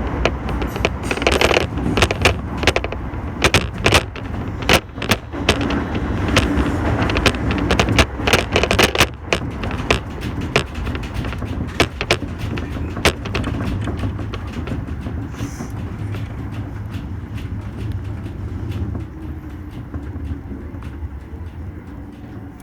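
Toei Shinjuku Line subway train running through the tunnel, heard inside the car: a steady low rumble with sharp clicks and clatter from the wheels. The clatter thins out and the rumble gets quieter in the second half.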